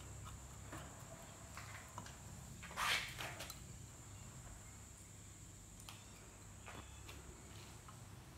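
Light metallic clicks and clinks of a steel puller plate, threaded screw and nuts being handled and fitted onto a motorcycle cylinder's head bolts, with one short, louder scrape about three seconds in. Under it run a steady low hum and a faint high whine.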